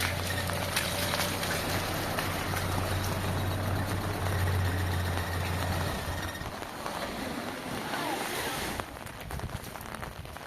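Heavy rain pouring steadily, with a low, steady engine-like hum underneath that stops about six seconds in.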